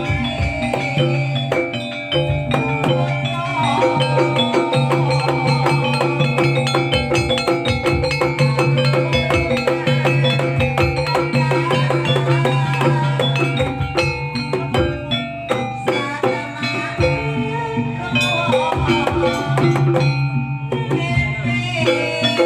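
Jaranan accompaniment music: quick, steady drumming and struck metal gamelan-style percussion under a sustained, wavering melody line.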